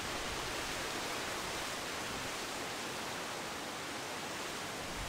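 Steady, even hiss of outdoor background noise with no distinct sounds in it.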